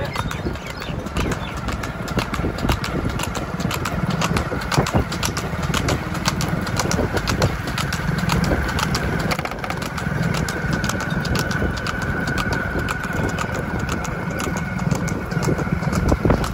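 Hooves of a buffalo bull clattering on hard ground in a quick, uneven patter, over a steady engine running.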